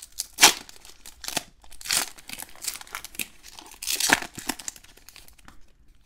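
A foil wrapper on a pack of Topps Gallery baseball cards being torn open and crinkled by hand, in several crackly bursts. The loudest is about half a second in, another comes near four seconds, and it dies away shortly before the end.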